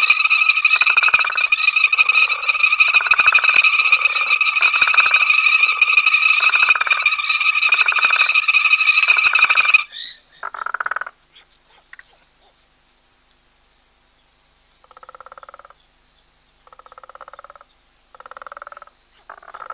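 Frogs calling at a waterhole: a dense chorus with a steady high trill and pulsing calls about once a second, which stops abruptly about ten seconds in. After that, single frogs give short trilled calls, each under a second long, several seconds apart.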